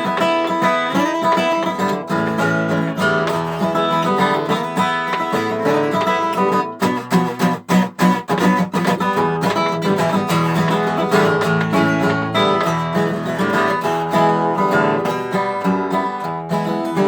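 Acoustic guitar strummed in a country-style rhythm, an instrumental break with no singing. About seven seconds in there are a few sharp, separated strokes before the steady strumming resumes.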